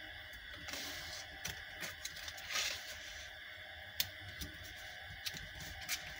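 Faint handling of pink card being folded and pressed flat by hand on a cutting mat: soft rustles and scattered light clicks, with a brief rustle about two and a half seconds in and a sharper tap about four seconds in, over a steady background hiss.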